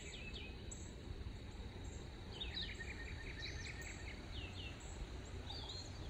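Songbirds singing high in cottonwood trees: short musical phrases of a red-eyed vireo and the buzzy trill of a northern parula, with a run of quick notes about two and a half seconds in. A steady low rumble runs underneath.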